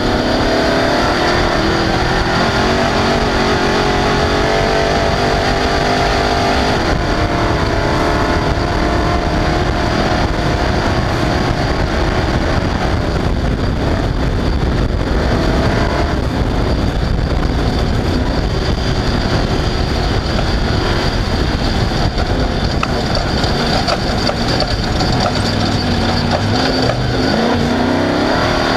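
Off-road race vehicle's engine at full race pace, its pitch climbing and dropping repeatedly as it accelerates and lifts. A constant heavy low noise runs underneath.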